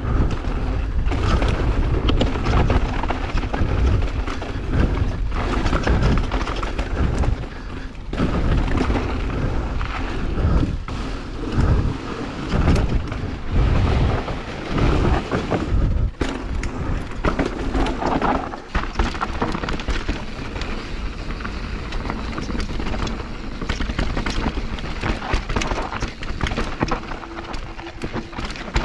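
Mountain bike riding fast down a dirt trail, heard from the bike-mounted action camera: wind rumbling on the microphone, tyres running over dirt and roots, and the bike knocking and rattling over bumps.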